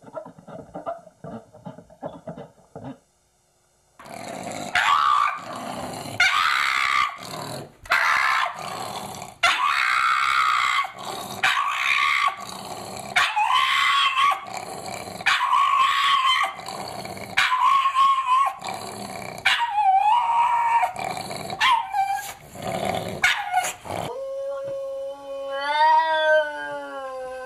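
Pug dog howling over and over, about a dozen loud drawn-out calls. Near the end a different animal gives a long, wavering, pitched cry that rises and falls.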